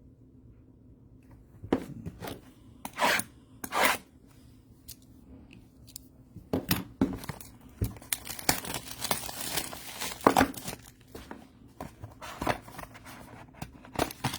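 Trading-card packaging being torn open and crinkled: a few separate sharp rips, then a long run of crackling and crinkling from about six seconds in.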